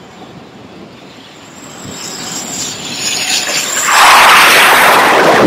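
Jet engines of an F/A-18 fighter swelling to a loud roar as it comes in and touches down on the carrier's flight deck, loudest from about four seconds in, with a thin high whine above it.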